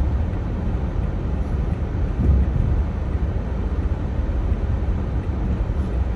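Car cabin noise while driving on a snow-covered road: a steady low rumble of the engine and tyres.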